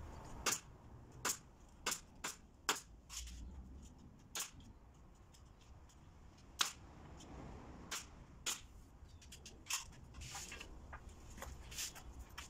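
Pneumatic nail gun firing nails into wooden strips as a door frame is assembled: about a dozen sharp shots, irregularly spaced, several in quick succession in the first three seconds.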